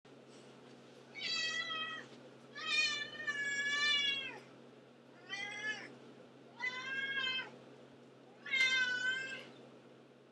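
A black domestic cat meowing over and over: five meows, the second long and drawn out, the others shorter.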